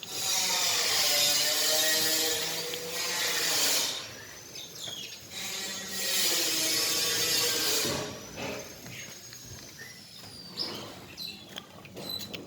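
Domestic cat meowing: two long, drawn-out meows, the first lasting about four seconds, the second about two seconds, followed by faint clicks and rustling.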